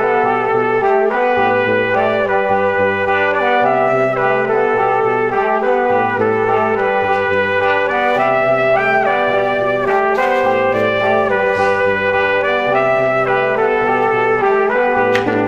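Background music: a steady instrumental tune with a pitched lead melody over a bass line that changes note about once a second.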